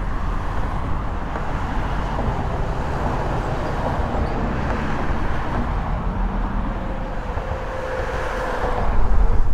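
Steady wind rumbling on the microphone mixed with road traffic noise, swelling near the end.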